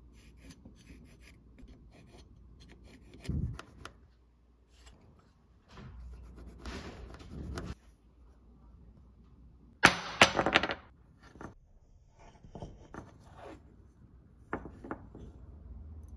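Small handling sounds at a workbench: a pencil marking a basswood block, with taps, rubbing and rustling as the block and its paper template are handled and set down. The loudest moment is a short burst of sharp clicks and rustling about ten seconds in.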